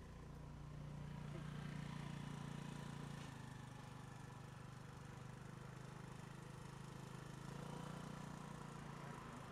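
Faint, steady low drone of vehicle engines running slowly, swelling a little about a second in and again near the end.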